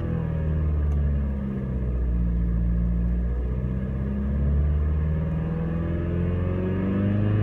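BMW E90 engine revving: its pitch drops near the start, holds, then climbs again toward the end, with a heavy low drone underneath. Above about 2000 rpm it makes a strange sound whose cause is unknown.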